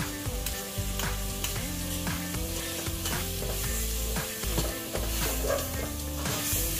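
Duck pieces frying in a stainless steel pot. A metal ladle and spoon stir them, scraping and knocking against the pot many times over a steady sizzle, with soft background music under it.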